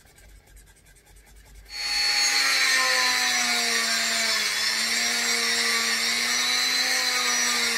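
A small handheld power tool starts about two seconds in and runs steadily, a whine with a hiss over it, dipping slightly in pitch midway as if under light load.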